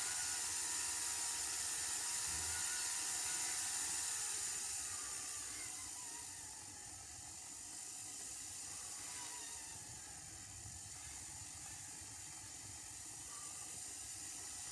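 Rotary tool spinning a rotary file against a wax ring blank, a steady whir with a hiss. About five seconds in it becomes quieter, with the file off the wax, and runs on more softly with a slowly shifting pitch.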